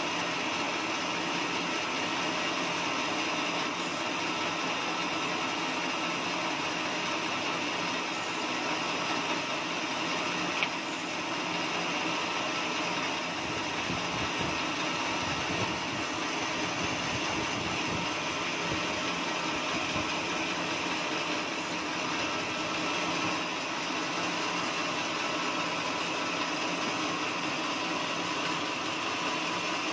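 Band sawmill running steadily, with one sharp click about eleven seconds in.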